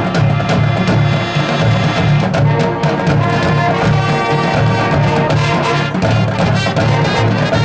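Marching band playing a field show: brass section with a low drum beat pulsing underneath.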